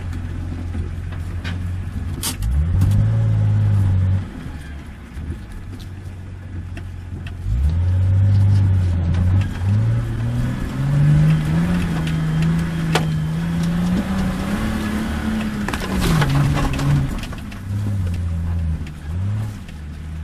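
Nissan Patrol off-road 4x4's engine revving through a slow maneuver. It idles, rises in pitch several times and holds higher revs for several seconds in the middle before dropping back, with quick blips near the end. A couple of sharp knocks come through, about two seconds in and again past the middle.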